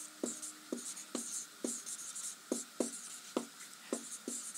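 Marker pen writing on a whiteboard: short scratchy strokes and small taps, unevenly spaced at about two or three a second.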